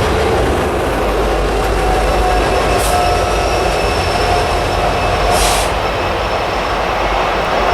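Freight train rolling steadily past, with the rumble of its cars, a faint held wheel tone, and two brief hisses about three and five and a half seconds in.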